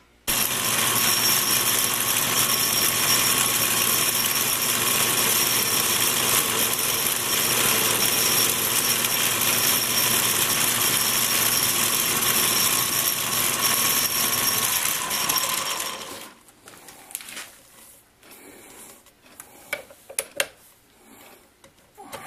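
Atlas 618 bench lathe running, its chuck spinning a piece of 303 stainless steel stock: a loud, steady mechanical whir with a faint whine. It winds down about sixteen seconds in, followed by a few light clicks and knocks.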